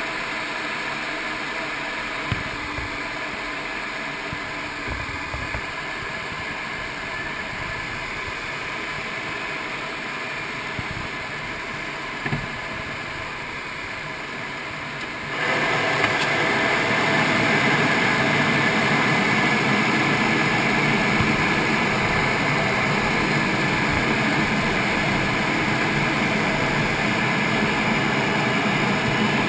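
Steady in-flight cockpit noise of a MiG-29UB: the hum of its twin RD-33 turbofan engines mixed with the rush of air over the canopy, with a few faint knocks. About halfway through it gets suddenly louder and stays that way.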